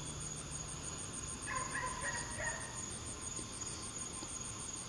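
Night insects chirping in a steady high pulse, about five pulses a second. A brief faint call is heard about halfway through.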